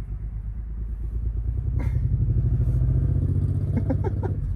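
A motor vehicle's engine running, a low pulsing rumble that grows louder about a second in and then holds.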